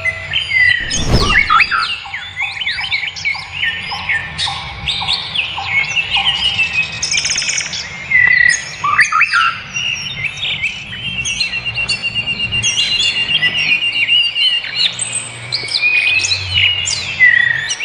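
Many wild birds chirping and singing at once, their calls overlapping throughout. A short low thump comes about a second in, and a fast, even trill runs for a couple of seconds about twelve seconds in.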